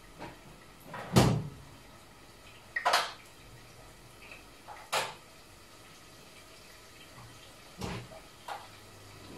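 A handful of sharp knocks and clicks of cookware being set on a ceramic hob and of range-hood controls being pressed, the loudest about a second in. The range hood's exhaust fan starts to run up right at the end.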